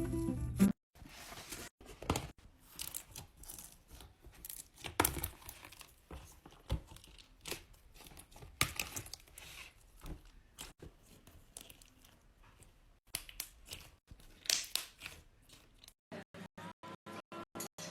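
Slime being squeezed, stretched and poked, giving irregular crackling and popping sounds, some louder snaps among them. Near the end a fast, regular pulsing tone begins.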